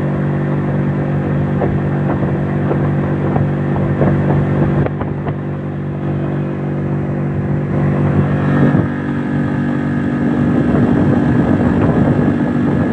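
Boat motor running steadily under way, its note shifting about nine seconds in as the engine speed changes and it gets a little louder.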